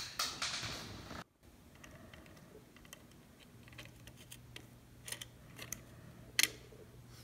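Light clicks and taps of small plastic gears and metal tweezers as parts are fitted onto a plastic toy gearbox: a quick run of clicks at first, then a few scattered ones and a single sharper click about six seconds in.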